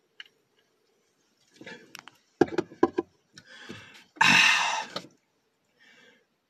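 A man gulping a drink from a can, several short swallowing sounds, followed about four seconds in by a loud, breathy open-mouthed exhale.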